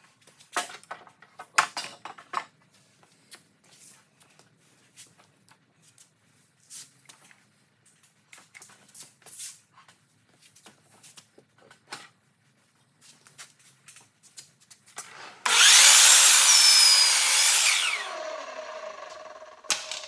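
Wood is knocked and shifted against a miter saw for several seconds. About fifteen seconds in, a sliding compound miter saw starts and its blade cuts through a pine board for a couple of seconds. The blade then winds down with a falling whine.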